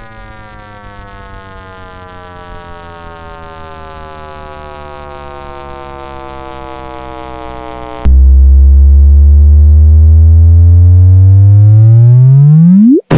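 Electronic tone with many overtones, slowly sinking in pitch and growing louder. About eight seconds in it jumps to a much louder, lower tone that sweeps steeply upward in pitch and cuts off suddenly near the end.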